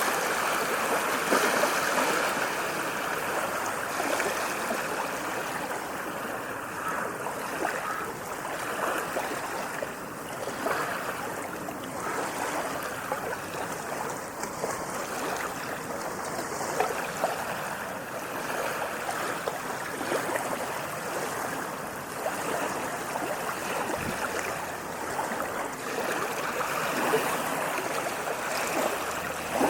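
Small sea waves washing and lapping in a continuous splashing of water that swells slightly louder near the end.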